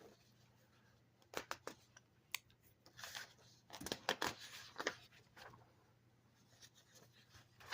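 Sheets of paper being handled and leafed through: a few short, crisp rustles and clicks in bursts, the loudest a little past the middle.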